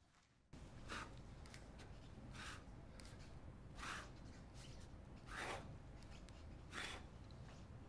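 Faint heavy breathing in a steady rhythm, one breath about every second and a half, over a low steady hum that comes in about half a second in.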